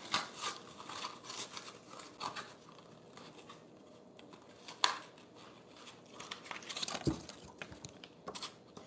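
Stiff plastic blister packaging of a Yu-Gi-Oh card pack being handled, crinkling and clicking in short irregular crackles, with one sharp snap about five seconds in and a dull knock about seven seconds in.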